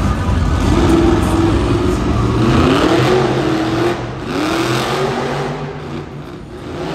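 Monster truck engine revving, its pitch rising and falling several times, growing fainter in the last couple of seconds.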